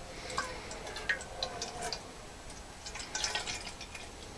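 Water pouring in a thin stream from a plastic measuring jug into a metal kettle, filling it.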